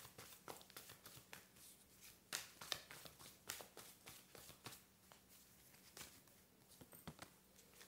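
Tarot cards being shuffled in the hands: a faint, quick, irregular run of soft card clicks and flicks, thinning out in the second half.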